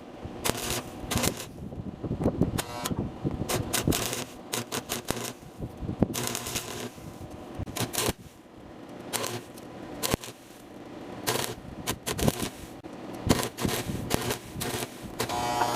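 Stick (arc) welding: the electrode's arc crackling in irregular rapid bursts, stopping and restarting several times.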